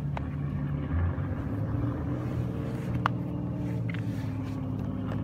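An engine running steadily with a low hum, with a few faint clicks over it.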